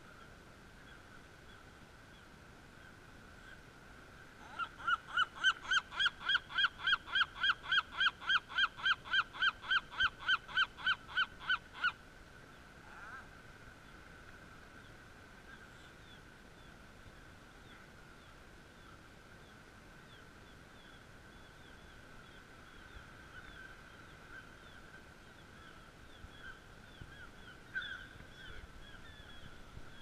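Gull calling loudly in a fast, even series of about four calls a second for some seven seconds, then stopping abruptly.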